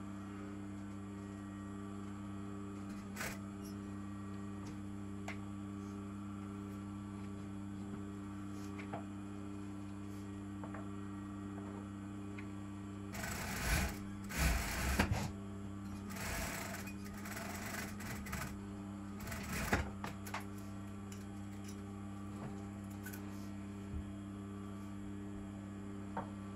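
Brother industrial sewing machine with its motor humming steadily, with a few short bursts of stitching and fabric handling about halfway through.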